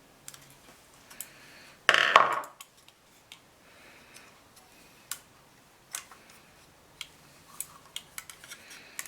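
Scattered light clicks and taps of a small screwdriver and plastic model-kit parts being handled, with one louder rustling clatter about two seconds in.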